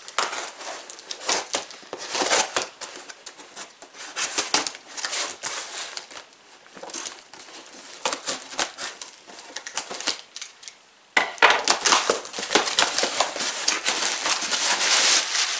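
Scissors snipping and scraping through the tape on a cardboard box, a long run of short scratchy cuts. About eleven seconds in it gives way to louder crinkling and rustling as the box flaps are pulled open and the packing material inside is handled.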